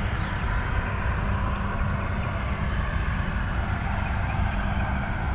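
A steady low hum and rumble with an even hiss above it.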